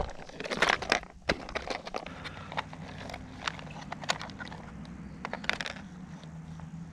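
Rustling, then scattered light clicks and rattles of plastic lures being picked through by hand in an open plastic tackle box.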